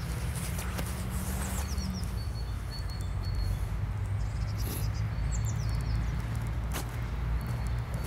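A small songbird singing short phrases of quick, high, falling notes, repeated every couple of seconds, over a steady low rumble, with a few faint footsteps on the park path.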